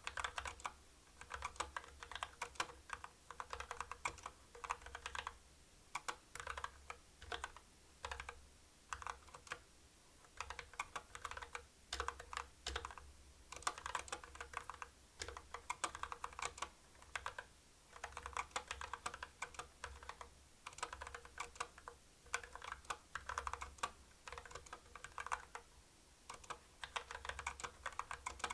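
Typing on a mechanical keyboard with Kailh Box Black linear switches: fast runs of keystrokes with short pauses between bursts.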